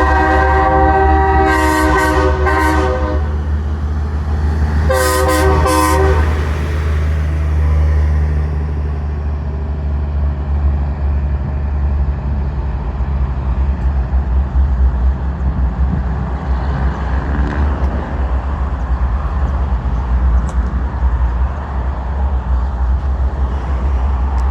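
Train horns on a school bus blowing a chord of several notes at once: a blast broken into short toots over the first three seconds, then one more short blast about five seconds in. After that only a steady low rumble and noise remain.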